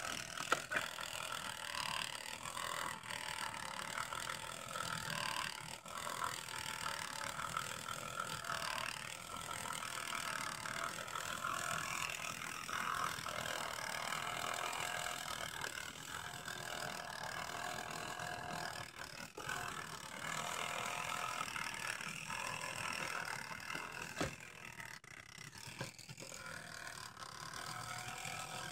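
Electric animatronic toy's motor and plastic gear train running noisily, with a continuous ratcheting, grinding rattle that drops briefly near the end. The noise points to trouble in the gear train.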